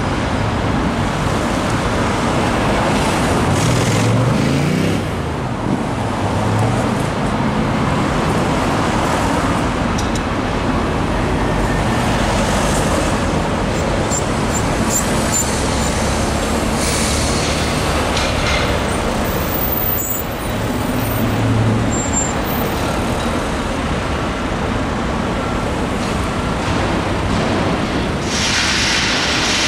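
Busy street traffic: cars, buses and trucks passing in a steady wash of engine and tyre noise. About four seconds in, one engine rises in pitch as a vehicle pulls away, and a sharp hiss comes near the end.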